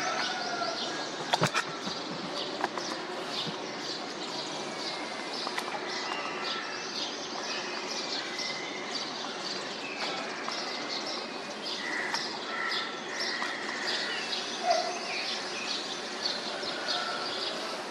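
Many small birds chirping rapidly and without pause, with scattered longer whistled notes among the chirps. A couple of sharp clicks sound about a second and a half in.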